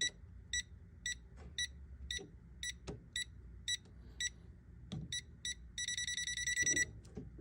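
A digital multimeter's non-contact voltage tester beeping, a short high beep about twice a second, then a quick run of rapid beeps for about a second near the end, as it senses voltage more strongly. A few faint handling clicks.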